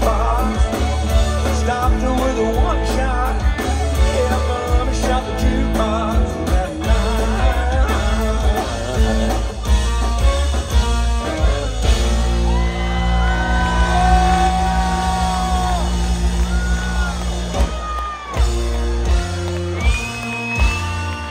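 Live country band playing through a PA: drums, bass and guitars, with a fiddle on stage. In the second half a lead instrument holds long notes that bend and slide over a steady bass.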